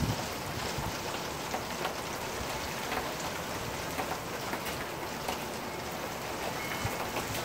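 Heavy rain falling steadily: an even hiss of rain with scattered sharp ticks of drops landing close by.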